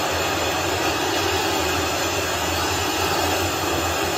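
Falcon 9 rocket's first-stage engines roaring just after liftoff: a steady, dense rush of noise with a low hum underneath.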